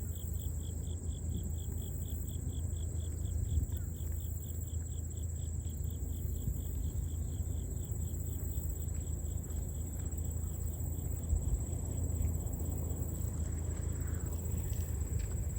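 Late-summer insects calling in a chorus: one chirps in a steady pulse about four times a second, fading out past the middle, over a continuous high-pitched buzz, with a low steady rumble underneath.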